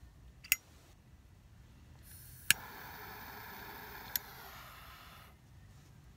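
Butane torch lighter clicking: one sharp click, then a second click about two seconds later that opens a steady jet-flame hiss lasting nearly three seconds, with a lighter click partway through.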